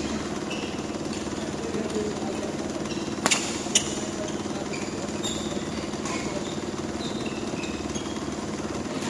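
Badminton rackets striking the shuttlecock during a rally: sharp cracks, the two loudest about half a second apart a little over three seconds in, with fainter hits at other moments. Under them runs a steady, finely pulsing mechanical hum.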